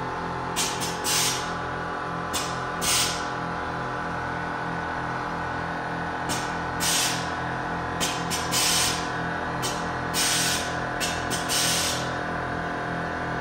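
Air-suspension valves letting air out of the rear air bags in about a dozen short hisses, often in quick pairs, as the bags are let down a few psi at a time. Steady background music plays underneath.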